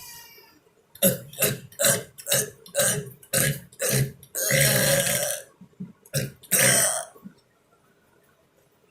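A person burping over and over: a quick run of short burps about two a second, one longer burp, then two more, stopping about seven seconds in.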